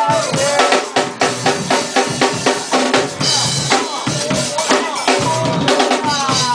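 Breakbeat music with a heavy drum-kit beat (kick, snare and rimshot), played loud over a sound system.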